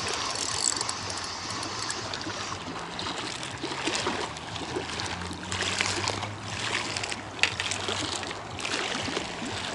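Small waves lapping and splashing against a concrete bank, with a few light clicks and knocks in the second half.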